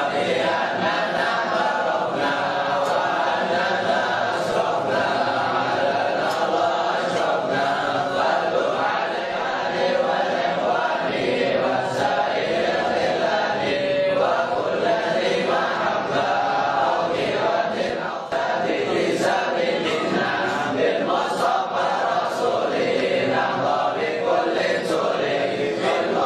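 Many men's voices chanting together as a crowd, a steady, dense group chant with no pauses.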